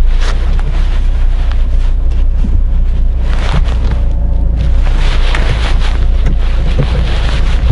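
Car cabin noise picked up by a dashcam: a steady low rumble from the car's engine and tyres as it moves slowly, with a rushing hiss that swells and fades several times.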